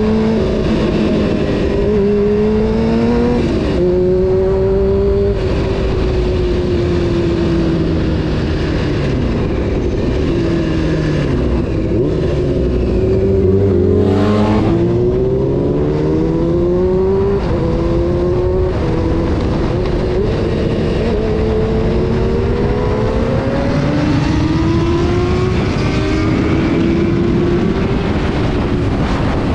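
Honda CBR600 F4's inline-four engine accelerating hard, its pitch climbing through the revs and dropping at each gear change. The revs run down steadily to a low point about halfway through, then the engine pulls up through the gears again.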